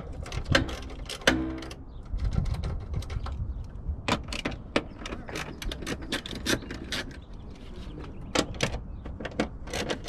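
Hand socket ratchet clicking in short, irregular runs as small 10 mm bolts are turned, with a brief buzz of quick ratcheting about a second in.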